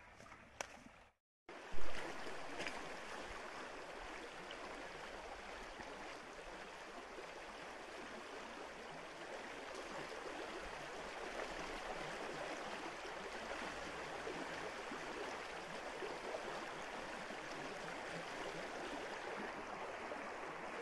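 Shallow stream running over stones, a steady rushing of water, with a short sharp knock about two seconds in.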